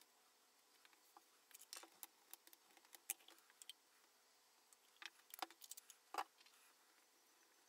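Faint, scattered clicks and taps of small things handled on a table: a tube set down on paper and a small bottle opened and tipped over a porcelain dish, in two short spells.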